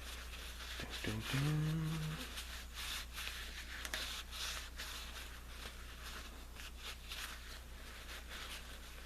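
Rubbing the vinegar-patinaed steel head of a ball-peen hammer by hand to wipe off the residue, in irregular short scrubbing strokes. A brief low hum from a person's voice sounds about a second and a half in.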